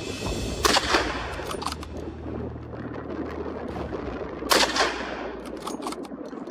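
Two hunting rifle shots, the first about half a second in and the second about four and a half seconds in, each trailing off in a short echo.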